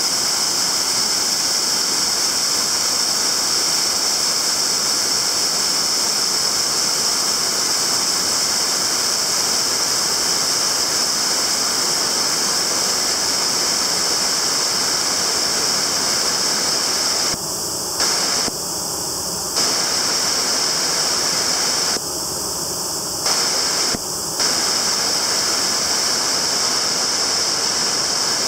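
Waterfall, a steady loud rush of falling water with a strong hiss. The sound drops a little for a second or two twice, around eighteen and twenty-three seconds in.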